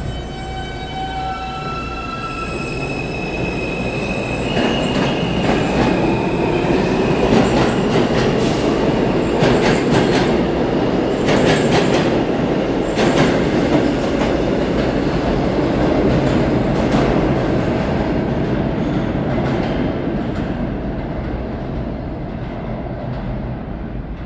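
R160 subway train pulling out of an underground station: the motors whine in rising steps as it picks up speed, then the cars rush past with a loud rumble and sharp clicks of the wheels on the track, fading as the train goes off into the tunnel.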